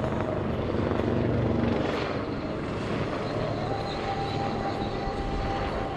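HAL Dhruv display helicopter flying past: steady rotor noise with its turbine whine, which rises in pitch about halfway through and then holds steady.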